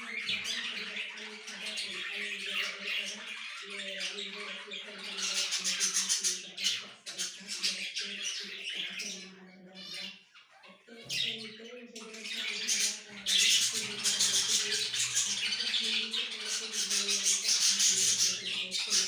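Many small birds chattering, chirping and squawking together in a dense, continuous din that dips briefly about halfway through, over a steady low hum.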